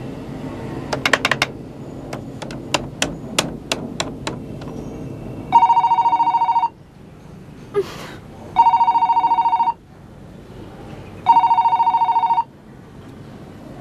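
Landline telephone ringing with a trilling electronic ring: three rings of about a second each, a little under three seconds apart, the first coming about halfway in. Before the ringing starts there is a quick run of about ten sharp clicks.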